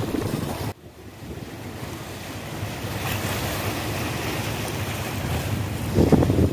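Wind buffeting the microphone outdoors: a steady rushing hiss that drops away sharply a little under a second in, builds back up, and swells in a short louder gust near the end.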